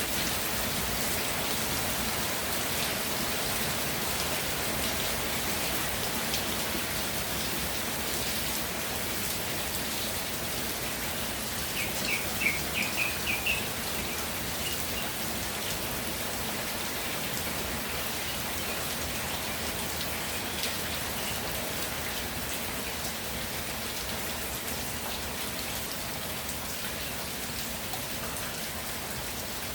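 Steady rainfall, an even patter of raindrops. About twelve seconds in, a short run of about six quick high chirps sounds over the rain.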